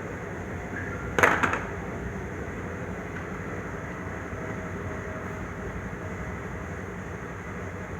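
Steady mechanical background noise, with a brief burst of several sharp knocks about a second in.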